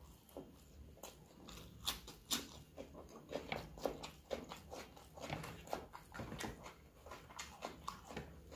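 Close-miked wet chewing and lip-smacking of a person eating rice and curry by hand, with squishing as his fingers mix the rice into the gravy: a steady, irregular run of soft clicks and squelches.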